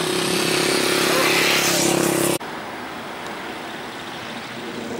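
A steady engine drone with a low hum, growing louder, cut off abruptly about two and a half seconds in; quieter outdoor background noise follows.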